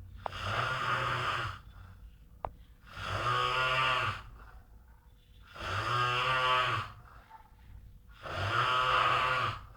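A man snoring in deep sleep: four long snores at a steady rhythm, one roughly every three seconds, with quiet pauses between. A brief click sounds in the second pause.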